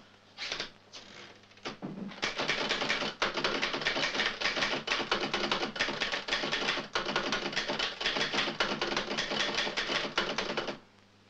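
Manual office typewriter being typed on fast, a rapid clatter of key strikes. After a few quieter knocks, the typing starts about two seconds in and stops abruptly near the end.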